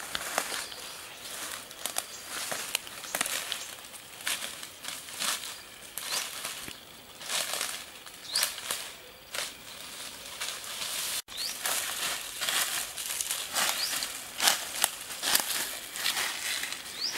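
Footsteps through dry leaves and undergrowth: irregular rustling and crackling steps, a couple a second.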